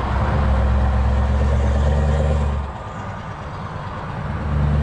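Scania V8 diesel truck engine heard from inside the cab, running steadily under load; a little past halfway it falls away for about a second and a half, then comes back on strongly near the end.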